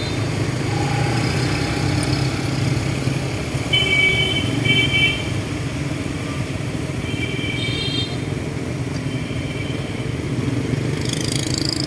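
Motor scooters and cars running through a city intersection, a steady traffic hum. Short horn beeps sound twice about four seconds in, and again about seven seconds in.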